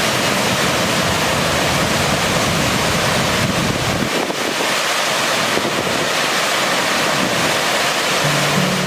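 Waterfall rushing close by: a loud, steady roar of falling water, with extra low rumble in the first few seconds. Music comes in near the end.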